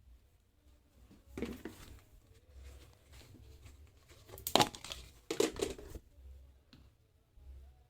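Crinkling and handling noises in a few irregular bursts, the loudest about halfway through.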